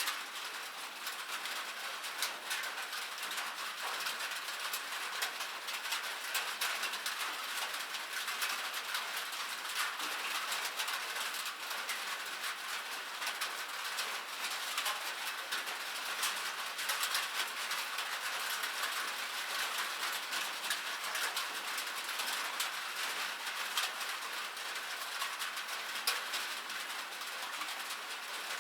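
Rain pattering on a metal surface: a steady, dense hiss of fast, fine ticks from the drops hitting metal, with no low rumble.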